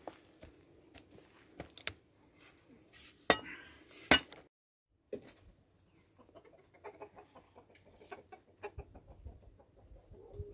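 Chickens clucking with short repeated calls, mixed with scattered clicks and knocks. Near the middle the sound drops out completely for about half a second.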